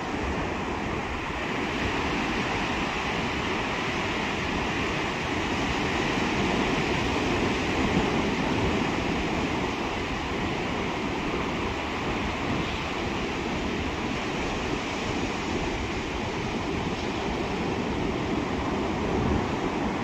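Pacific Ocean surf breaking offshore and washing up a flat sandy beach, a steady rushing of waves.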